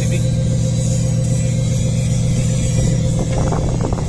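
Steady low drone of running machinery, with a faint higher hum above it; a patter of small clicks and rattles starts near the end.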